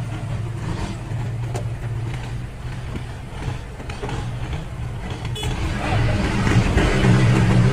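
A motor vehicle's engine running steadily, getting louder about six seconds in.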